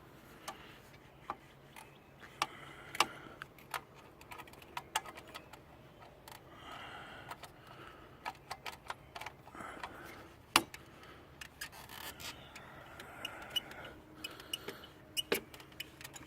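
Irregular metallic clicks, knocks and short scrapes as the motorcycle's stock exhaust muffler is worked loose and slid off its pipe, with one sharper knock about ten seconds in.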